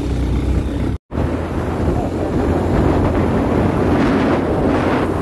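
Wind buffeting the microphone over the steady hum of a moving vehicle's engine, with a momentary cut to silence about a second in.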